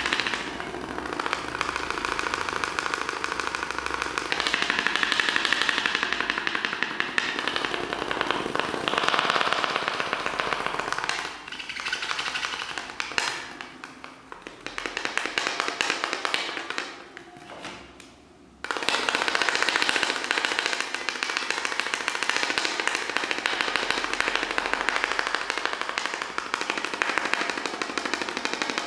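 Dense, rapid crackling, a stream of tiny clicks across a wide range. It thins out and fades in the middle, then snaps back loud about two-thirds of the way through.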